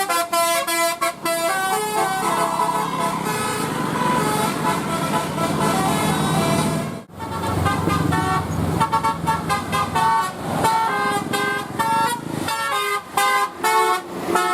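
Bus 'telolet' multi-tone air horns playing quick melodic note sequences: short held tones that change pitch every fraction of a second. There is a brief break about seven seconds in, then more horn tunes.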